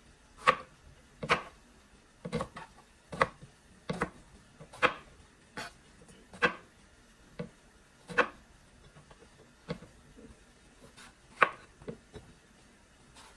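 Chef's knife cutting a long purple eggplant into chunks on a cutting board: about a dozen single cuts, each ending in a sharp knock of the blade on the board, roughly one a second, with a short pause past the middle.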